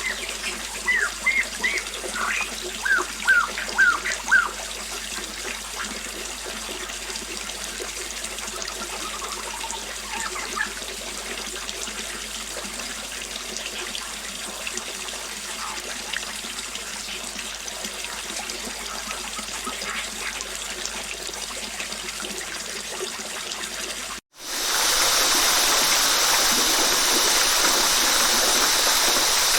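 Flowing water trickling and splashing, with a run of short high chirps in the first few seconds. About 24 seconds in, a sudden cut leads to a louder, steady rush of a waterfall.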